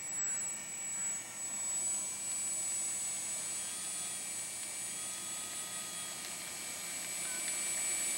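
Electric motor and propeller of a Parkzone F4U-1A Corsair RC warbird in flight: a steady high whine whose tones slowly drift up and down in pitch as the plane moves about.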